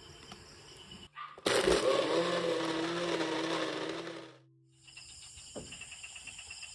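Single-serve bullet blender running for about three seconds, blending ice and mango into a shake, then stopping abruptly. After a short pause comes a steady high chirring of crickets and insects.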